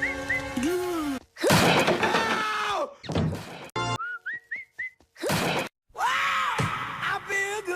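Rapidly cut cartoon meme audio: snippets of music and short rising whistle-like glides, broken by sudden thunks and abrupt drops to silence.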